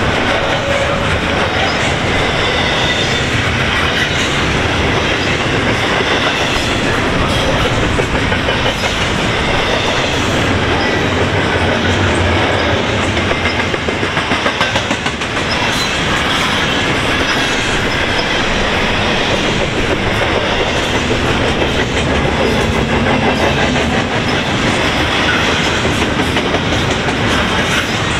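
Double-stack intermodal container well cars of a freight train rolling past at speed: a steady, loud rush and clatter of steel wheels on the rails.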